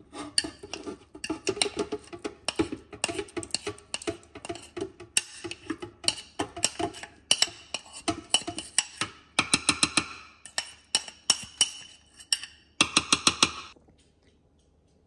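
Metal utensil scraping and tapping against a ceramic bowl over a plastic blender jar: a quick, irregular run of clinks and knocks, stopping about a second and a half before the end.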